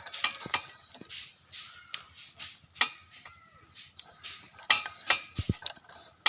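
Metal parts and tools being handled while a new gasket and cover are fitted to a petrol generator engine: irregular clinks, taps and scrapes.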